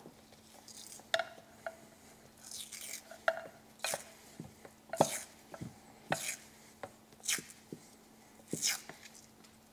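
Tesa harness tape being pulled off its roll and wrapped around a wire splice: a string of short, irregular rasping peels and small clicks. A faint steady hum runs underneath.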